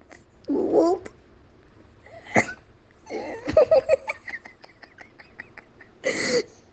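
A person laughing helplessly: gasping, wheezy breaths and a quick run of squeaky laugh pulses a little past the middle, then a sharp rushing breath near the end.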